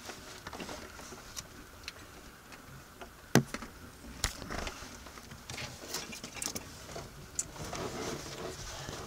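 Handling noise from hands moving wiring and corrugated plastic conduit: scattered small clicks and rustles over faint hiss, with a sharper click about three seconds in and another a second later.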